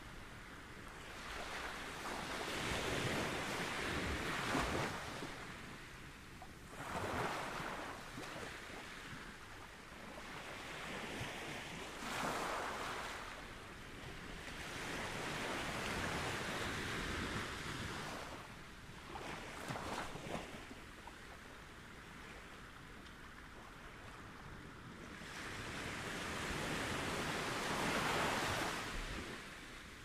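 Ocean waves breaking and washing up a beach. The surf swells and fades in about six surges over the half-minute.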